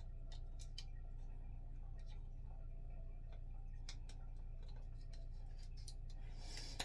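Scattered faint clicks and ticks of a plastic extendable tripod being handled, over a steady low hum, with a slightly louder click at the very end.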